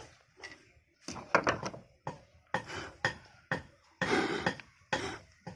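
Metal tools and parts of an electric planer being handled, giving a run of irregular clinks and knocks, with a longer scraping clatter about four seconds in.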